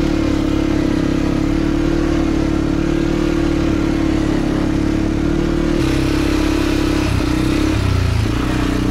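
A CFMoto CFORCE 450L quad bike's engine running steadily under way, heard from on the machine. About six seconds in the engine note shifts abruptly and wavers briefly before settling again.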